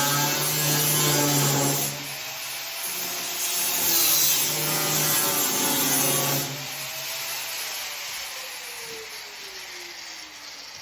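A 4.5-inch angle grinder cutting through the cab's sheet metal for a roof chop, running in two passes with a short break between. About six and a half seconds in it is let off and its whine falls steadily as the disc spins down.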